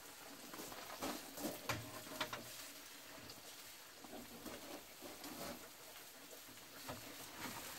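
Faint crackling of a charcoal grill with meat cooking on it, with scattered sharp clicks and ticks.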